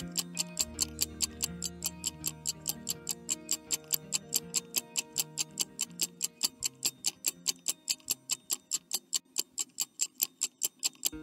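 Countdown-timer sound effect: a clock ticking steadily about four times a second over light background music, the music thinning out over the last few seconds.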